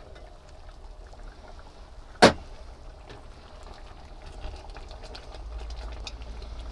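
A glass saucepan lid set down on a worktop with one sharp, briefly ringing clink about two seconds in, then a wooden spoon stirring soup in a stainless steel pot, with small scraping clicks.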